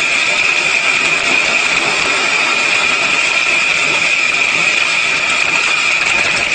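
Corn-processing machine running steadily: a constant high whine over a rough mechanical noise.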